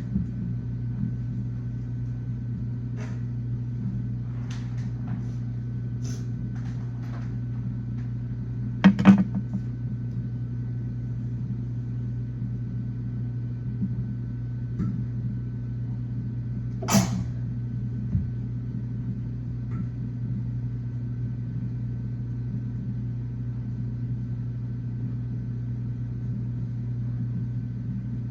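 Kitchen noise while cooking: a steady low hum with scattered knocks and clatter of pots, utensils or cupboard doors, the loudest a quick double knock about nine seconds in and another sharp sound near seventeen seconds.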